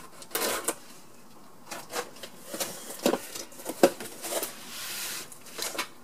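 Cardboard box and packing being handled by hand: irregular rustling and scraping of corrugated cardboard flaps, with a few short knocks, the loudest a little after three seconds in and just before four seconds in.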